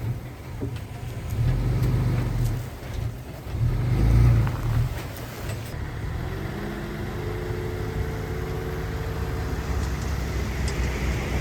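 Diesel engine of heavy earthmoving equipment running with a low rumble, surging twice under load in the first few seconds. It then settles to a steady run, with a faint higher whine joining about six seconds in.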